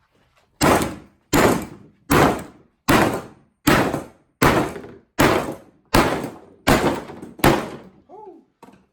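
Sledgehammer pounding a Swamp Eye Submersible flounder gigging light on a cardboard-covered table: ten heavy blows in a steady rhythm, about one every three-quarters of a second, each a dull thunk that dies away quickly.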